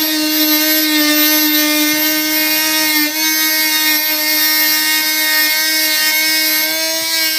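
Oscillating multi-tool running with a steady buzzing whine as its blade cuts into a plaster-and-burlap field jacket, with a brief dip in pitch and loudness about three seconds in.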